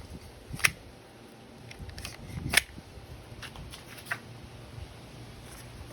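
A few sharp plastic-and-metal clicks with light rustling from handling a WE Glock 18C gas blowback airsoft pistol and its gear; the loudest click comes about two and a half seconds in.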